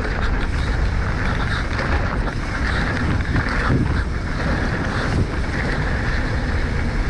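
Specialized Enduro mountain bike rolling fast down a rough dirt trail, with steady wind rushing over the microphone and the clatter of tyres and bike on the ground.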